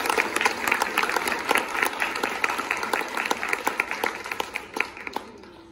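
Audience applauding, a dense patter of clapping that thins out and fades near the end.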